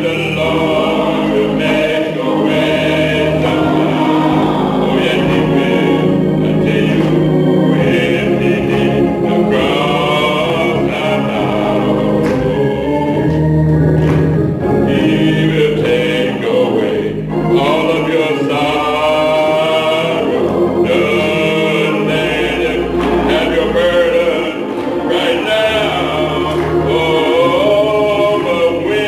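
A choir singing gospel music, many voices together over a steady low accompaniment.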